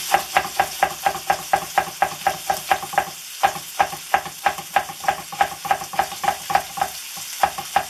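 Knife chopping a green bell pepper into thin strips on a wooden cutting board: quick, even strokes, about five a second, each a knock of the blade on the wood. The chopping breaks off briefly twice, about three seconds in and near the end. Underneath is a low sizzle of vegetables frying in a pan.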